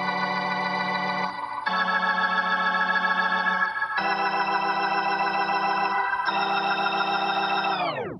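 Music: sustained organ-like keyboard chords, four in turn, each held about two seconds. Near the end all the notes slide steeply down in pitch together, like a tape slowing to a stop, and cut off.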